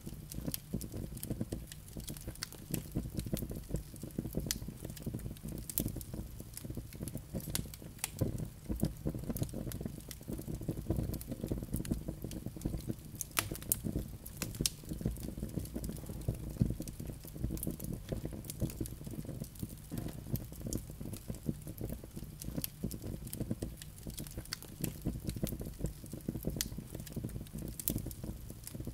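Wood logs burning in a fireplace: a steady low rush of flame with frequent sharp crackles and pops from the burning wood.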